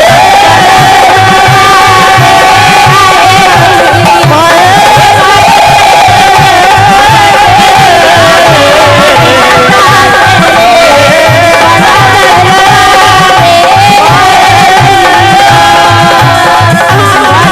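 Instrumental interlude of a Bundeli folk song: a hand drum keeps a steady beat under a continuous, wavering melody line.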